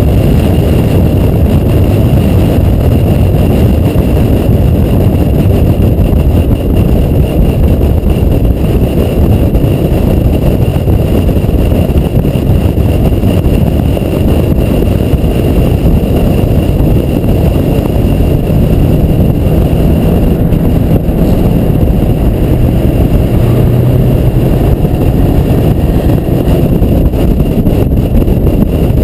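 Acura TL Type-S at speed, heard through a camera mounted outside the car: a loud, steady rush of wind on the microphone mixed with engine and tyre drone.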